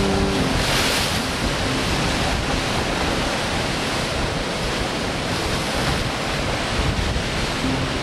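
Storm surf breaking over flat coastal rock ledges, a steady rush of crashing waves and foaming water in strong wind. A louder splash comes about a second in.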